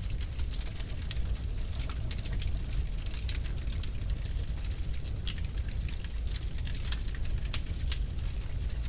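Wood fire in a fireplace crackling and popping: many sharp irregular snaps over a steady low rumble of burning.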